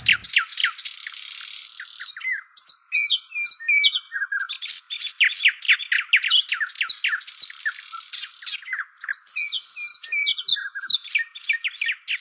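Several small birds singing: rapid runs of short chirps that fall in pitch, with some whistled notes in between. The sound is thin, with nothing low in it.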